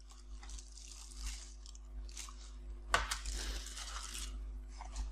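Accessories and their packaging being handled: light rustling, a sharp tap about three seconds in, then about a second of crinkling, over a steady low electrical hum.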